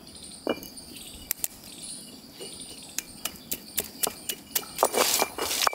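Ginger being worked by hand: scattered sharp taps, then quick, louder repeated knocks from about four seconds in. Steady high chirring of insects runs underneath.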